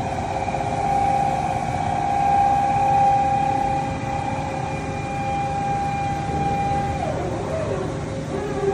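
SNK RB-200F gantry machining center running with a steady mid-pitched whine over a constant lower hum. The whine rises in at the start, holds for about seven seconds, then falls and fades away.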